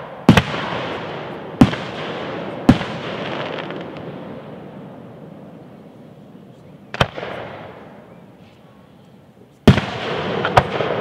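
Fireworks show shells bursting overhead: six sharp booms, three close together at the start, a lull of about four seconds, then three more. A noisy, fading tail lingers after each bang.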